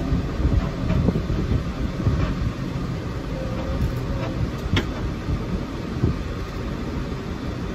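Tractor engine running, heard from inside the cab, with steady rattling and a few sharp clanks from the tractor and the hitched wheel hay rake.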